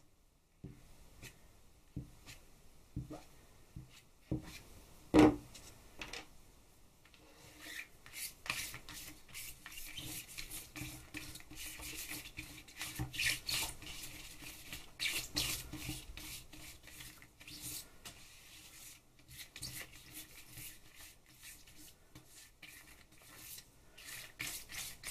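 A few light handling clicks and one sharp knock about five seconds in, then quick repeated scraping and rubbing strokes as a tool spreads thick paint across a crinkled plastic sheet cut from a paddling pool.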